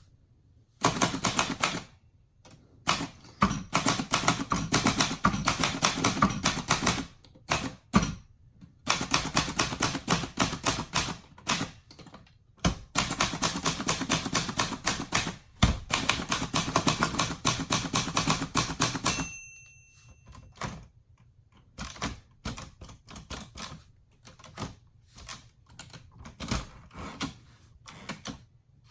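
A 1962 Royal Signet manual typewriter being typed on in fast runs of sharp key and typebar strikes, with short pauses between the runs. Near the end of the line a single ring of the margin bell sounds. After it come quieter, scattered clicks.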